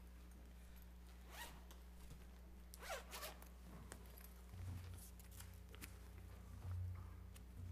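Quiet room tone: a steady low electrical hum, with scattered soft rustles and small clicks.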